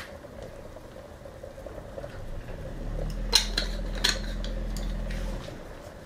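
Cream sauce simmering in a frying pan over a steady fan hum, with a couple of sharp clicks from spice jars being handled. A lower hum comes in about three seconds in and stops about two and a half seconds later.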